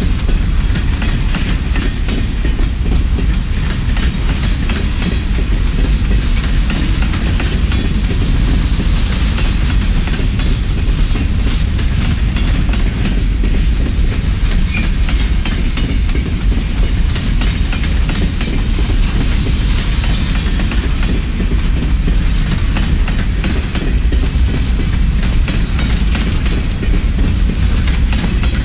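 Empty open-top coal hopper cars of a long freight train rolling steadily past, the wheels clicking over rail joints over a continuous low rumble.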